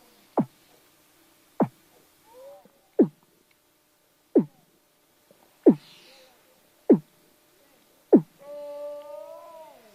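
Seal calling: seven short, sharp calls that each drop steeply in pitch, about one every 1.3 seconds. Near the end comes a longer, wavering moan that slides down as it ends.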